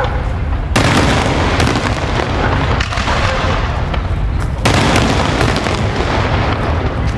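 Aerial fireworks shells bursting overhead in a rapid, continuous barrage of booms and cracks. Two especially sharp, loud reports come about a second in and near five seconds.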